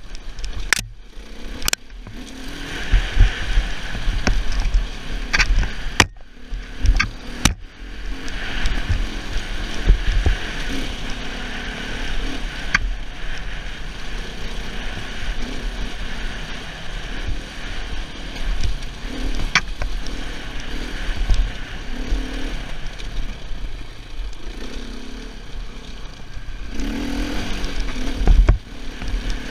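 Husaberg 450FE single-cylinder four-stroke enduro motorcycle running at low speed over a rocky trail, mixed with a steady rush of wind and occasional sharp knocks and clatter.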